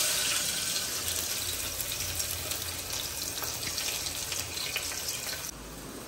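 Sliced onions sizzling in hot oil in a pressure cooker: a steady frying hiss that starts suddenly as they go in, dropping abruptly to a quieter hiss about five and a half seconds in.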